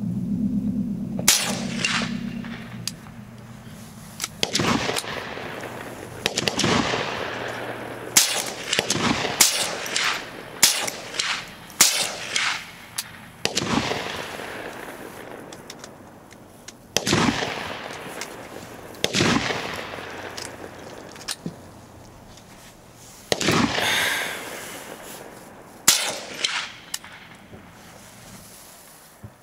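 Ruger 10/22 semi-automatic .22 LR rifle firing more than a dozen single shots at irregular intervals, a few in quick pairs, each report trailing off over about a second.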